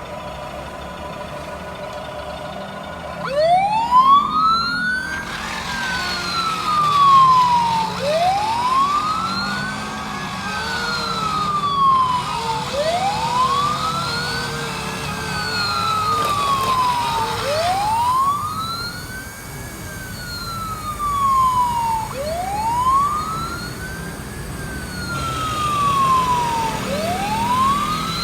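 Electronic sound module of a Huina 561 remote-control fire truck model playing a wailing fire siren. About three seconds in, the siren starts; its pitch sweeps up and falls back again, repeating about every four and a half seconds.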